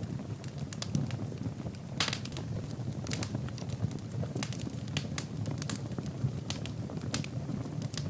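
Wood fire burning in a fireplace: a steady low rumble of flames with frequent sharp crackles and pops from the burning logs, a quick cluster of pops about two seconds in.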